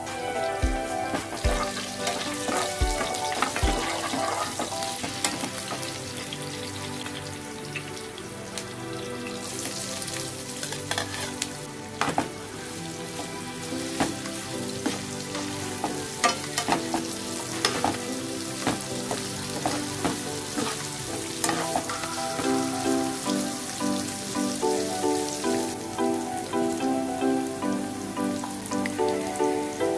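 Oil sizzling in a nonstick frying pan as curry leaves, green chillies and cumin seeds fry, then sliced onions are stirred in with a metal slotted spatula that scrapes and taps on the pan. Light background music plays underneath.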